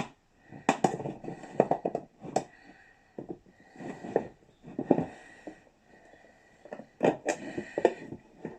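A chisel levering and scraping against the crimped metal rim of a speedometer case, spreading it apart so the front bezel can come off. Irregular clicks, taps and short scrapes with brief pauses between them, as the tool is worked around the rim.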